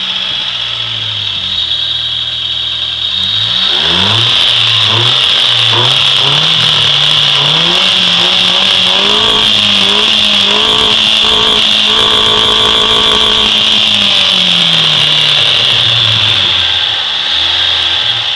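Chevrolet Corsa engine with an open cone sports air filter, revved up from idle and held at high revs, then dropping back to idle. A strong steady hiss runs under it.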